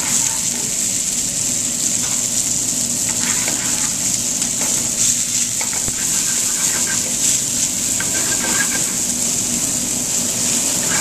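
Mushrooms, mixed vegetables and broccoli sizzling in garlic and oil in a stainless steel frying pan, a steady hiss with occasional light knocks and scrapes as they are tossed and stirred.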